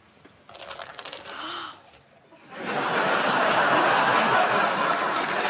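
Studio audience laughing softly, then about two and a half seconds in breaking into loud, steady applause.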